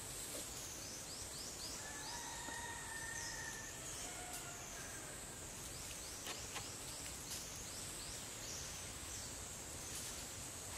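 Forest ambience dominated by a steady, high-pitched insect chorus that wavers up and down in pitch with repeated short falling sweeps. A faint two-tone call is held for a second or two about two seconds in, and a few light clicks come around six seconds in.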